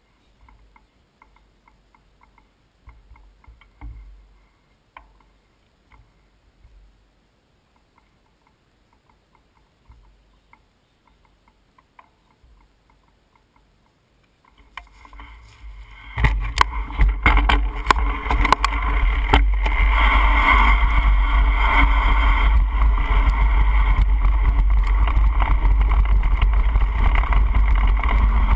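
Mountain bike ridden down a forest trail: loud wind noise on the handlebar-mounted camera's microphone, mixed with the bike rattling and jolting over the ground. It starts suddenly about halfway through, after a quiet stretch with a few faint clicks.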